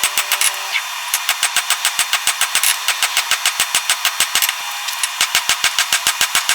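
Rapid, evenly spaced hammer blows on hot steel, about five or six a second, with brief pauses near the start and about two-thirds of the way through: a billet of chainsaw chain and file steel being forged.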